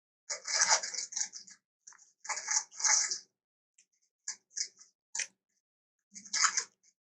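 An elephant chewing and crunching food, in about seven short crisp bursts separated by silent gaps.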